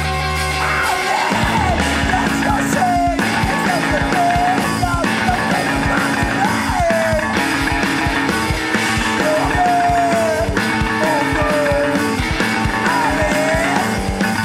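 Noise pop band recording: a dense, evenly pulsing drum beat under sustained instrument chords, with a vocal line that slides up and down in pitch. The full beat comes in about a second in.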